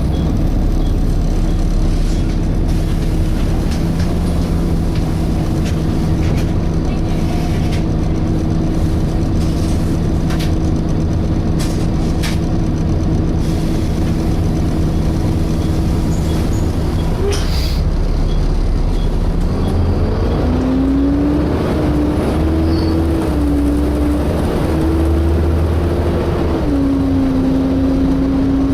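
Volvo B7TL double-decker bus heard from inside while it runs: the diesel engine with the whine of its cooling fan. The fan's tone holds steady at first, then rises in pitch about two-thirds of the way through, wavers, and steps down a little near the end. A few short sharp sounds come through in the middle.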